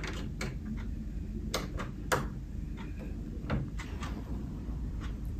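Plastic LEGO bricks being handled and pressed together, a scattering of sharp, separate clicks over a steady low hum.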